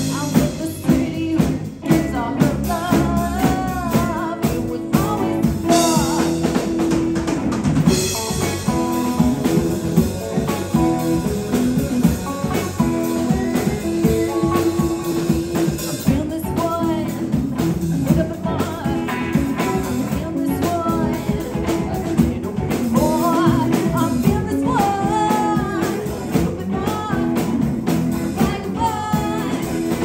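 Live rock band playing: a woman singing lead over two electric guitars, electric bass and a drum kit. The singing comes in the first few seconds and again over the last third, with the band carrying on between.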